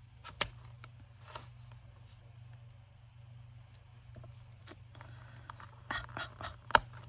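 Scattered light taps and clicks of rubber craft stamps being handled and pressed down on a desk, a few apart at first and a quick cluster near the end, over a steady low hum.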